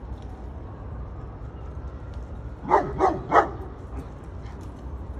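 A dog barking three times in quick succession, about halfway through.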